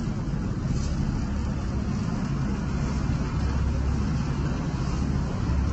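Horizontal ribbon blender running, its ribbon agitator turning through powder in the trough: a steady low rumble.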